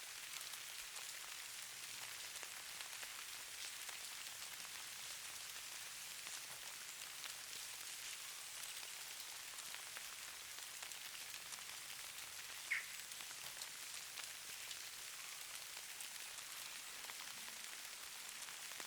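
Steady fine patter and hiss of falling snow, a soft crackle of tiny impacts. One brief high squeak stands out a little past the middle.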